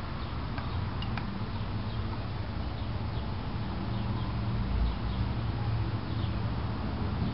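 Small birds chirping, short high chirps repeating every second or so, over a steady low hum.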